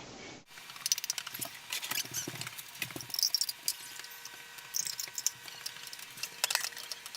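Beans frying with onions and tomatoes in hot oil in a large skillet: irregular crackling and popping over a faint steady hum.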